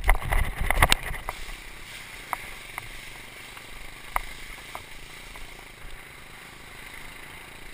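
Water rushing and spraying under a bodyboard towed at speed across shallow water. It starts with heavy thumps and buffeting in the first second as the board hits the water, then a steady hiss of spray with scattered sharp ticks.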